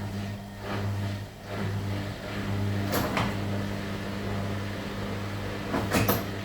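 Washing machine running with a steady motor hum, swelling and fading rhythmically at first, then banging sharply about halfway through and again near the end as the machine jumps.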